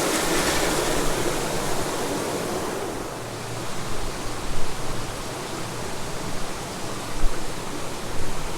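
Creek water rushing steadily past a small dam, louder for the first few seconds and then a little quieter.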